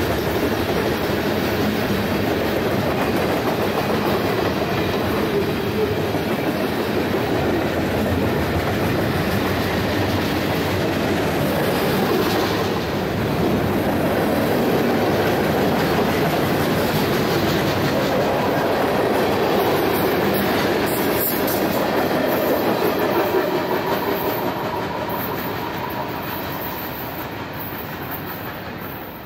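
Freight train cars rolling past on the rails, a steady rumble and clatter of steel wheels on track that fades away over the last several seconds as the end of the train passes.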